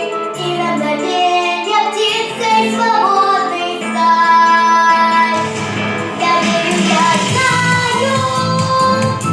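A girl singing a melody over instrumental accompaniment; a steady rhythmic beat in the low end comes in a little past halfway.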